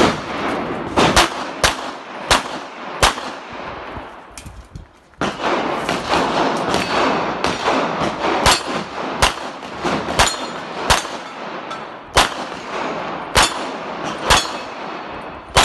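Pistol shots fired in quick strings during a practical shooting course of fire, about fifteen in all, several less than a second apart, with a pause of about two seconds after the first five.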